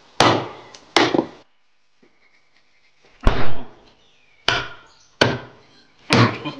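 A cleaver chopping raw beef bones on a thick wooden chopping block: about six sharp, heavy blows at uneven intervals, with a pause of nearly two seconds after the first three. The loudest blow lands about three seconds in.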